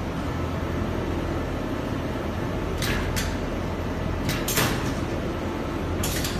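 An automatic quilt frame loader runs with a steady mechanical hum as it carries the quilt frame into the quilting machine. Short, sharp hisses cut in: two a little before halfway, two more a little later (the second the longest and loudest), and one near the end.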